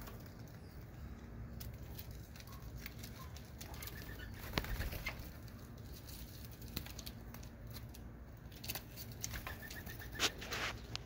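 Doves shuffling and briefly flapping their wings on a perch and feeder basket: scattered short flutters and scrapes, the loudest about four and a half seconds in and again near the end.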